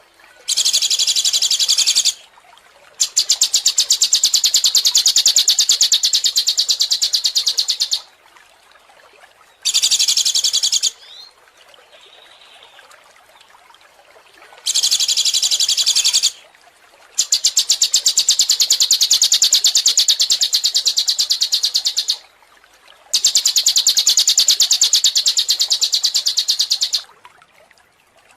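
A songbird's rapid, high-pitched trill, sung in six bursts of one to five seconds with short pauses between.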